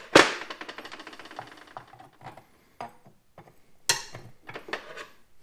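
Steel rods and a long screwdriver clanking on metal: a sharp clank just after the start that rings on for over a second, then lighter clinks and a second clank about four seconds in.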